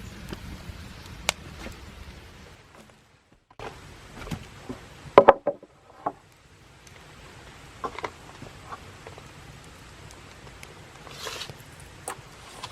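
Scattered knocks and clatter of handled hard objects, with a short silent gap about three seconds in and a quick run of sharp knocks, the loudest part, a couple of seconds later.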